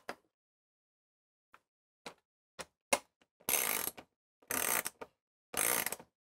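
Ratchet wrench tightening a nut onto a battery shunt stud to clamp the ring terminals: a few faint single clicks, then three short bursts of ratcheting about a second apart.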